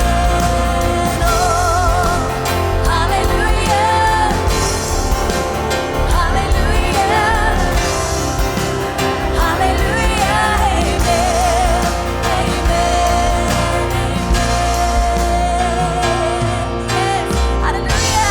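Live church worship band playing a contemporary worship song, with a singer holding long notes with vibrato over a steady band of keyboards, bass and drums.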